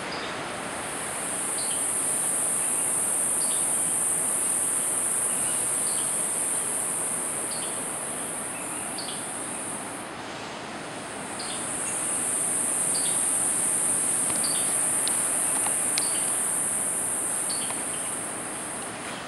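High-pitched insect drone that swells and fades in two long waves, over a steady rush of surf, with scattered short chirps.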